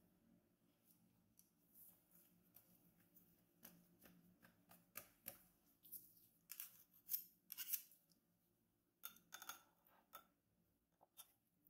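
Faint handling sounds of croissant dough on a wooden board: short sticky crackles and soft taps as the dough sheet is peeled free of its white cover and laid flat, with a last cluster of soft taps near the end as a lump of butter is put on the dough.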